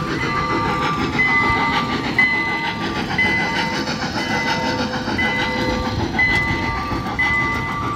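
Trackless tourist train passing, its sound system playing a looped train sound effect: pitched tones that pulse about once a second over a steady noise.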